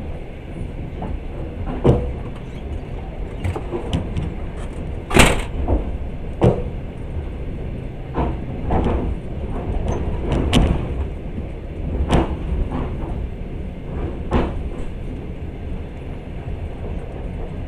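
Passenger train running: a steady low rumble of the carriage with irregular sharp knocks and clanks, the loudest about five seconds in.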